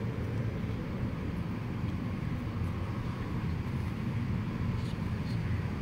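Steady low outdoor rumble with no distinct events, a faint tick or two near the end.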